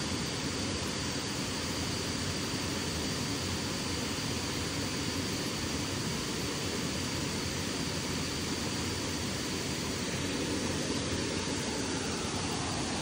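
Steady rush of water from waterfall cascades, even and unbroken, with a faint thin high tone held over it.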